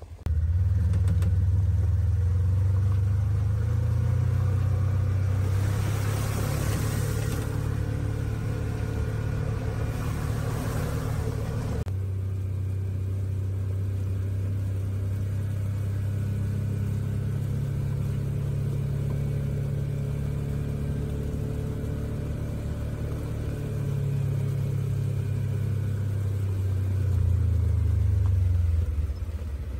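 A vehicle engine running at low revs, its pitch shifting a little up and down. A rushing hiss joins it for several seconds in the first half.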